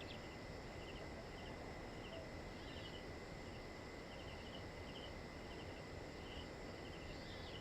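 Faint cricket chirping: short trilled chirps repeating about twice a second, over a low background hiss.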